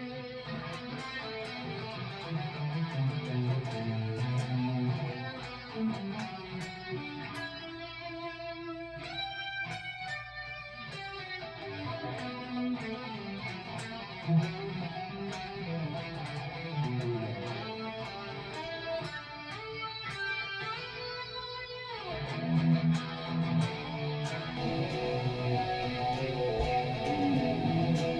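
Electric guitar played through a Tonex amp-modelling pedal into two Marshall cabinets, on one of the Tonex's built-in presets with some pedal effects: picked notes and strummed chords, with a couple of fast high runs around nine and twenty-one seconds in.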